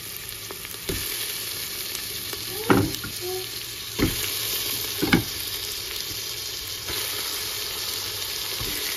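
Diced onions sizzling steadily in hot oil in a steel pot. Four dull thumps in the first half come as pieces of raw lamb neck are dropped into the pan.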